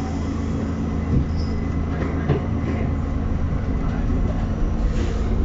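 New York City subway Q train pulling out of a station, heard inside the car: a steady low motor hum with a few knocks from the wheels, growing slightly louder as the train picks up speed.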